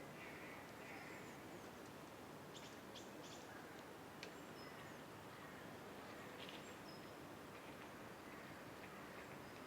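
Quiet outdoor ambience: a steady low hiss of background noise with a few faint, short bird chirps scattered through it, a small cluster about three seconds in.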